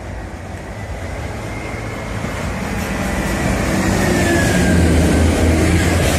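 Yellow on-track rail engineering machine approaching and passing close by. Its engine drone grows steadily louder, and a thin high whine drops in pitch as the machine goes past.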